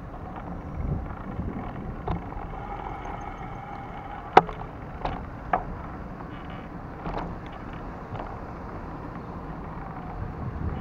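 Wind rumbling on the microphone of a camera moving along brick paving, with traffic in the background and several sharp knocks and rattles from bumps in the ride, the loudest about four seconds in.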